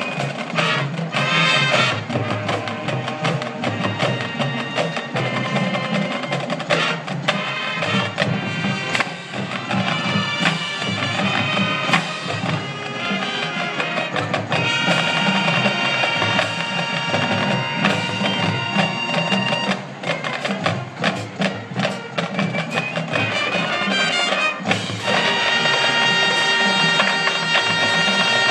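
Marching band playing live on the field: brass and woodwinds over a drumline, with sharp drum hits through the first half and long held chords about halfway through and again near the end.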